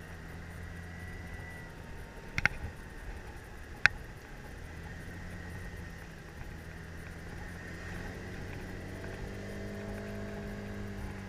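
Kymco scooter engine running steadily at low revs under way, with two sharp clicks about two and a half and four seconds in. From about eight seconds in, an engine note rises in pitch.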